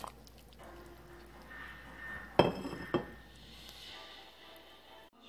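Dishware clinking twice against a metal soup pot, about half a second apart, each knock with a brief ring.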